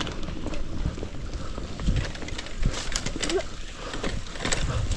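Outdoor noise of riding a bicycle along a trail in light rain: wind rumbling on the microphone, with scattered clicks and rattles.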